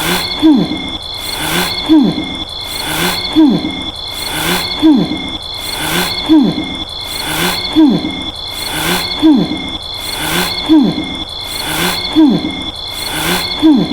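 Cartoon snoring sound effect looping steadily, one short snore about every second and a half, each dropping in pitch. A thin, steady high tone runs underneath.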